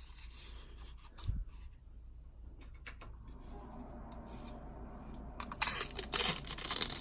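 Protective plastic film being peeled off new packaging, with a loud tearing rip in the last second and a half. Before it, scattered soft clicks of packaging being handled and a light thump about a second in.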